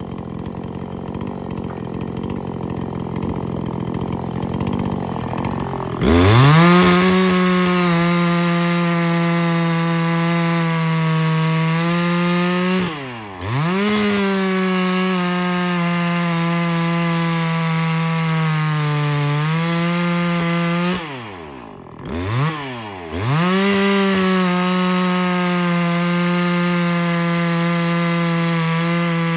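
Ported Neotec NH843 two-stroke chainsaw (a Husqvarna 543XP clone with its base gasket deleted) idling, then opened to full throttle about six seconds in and cutting through a log. The revs sag slightly in the cut, and twice the throttle falls off briefly and is opened again, near the middle and about two-thirds of the way in.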